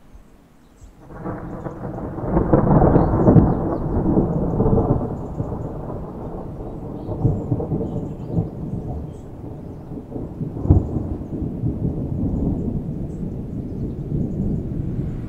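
Thunder: a low rolling rumble builds about a second in and is loudest over the next few seconds. A sharper clap comes about two-thirds of the way through, and the rumble rolls on after it.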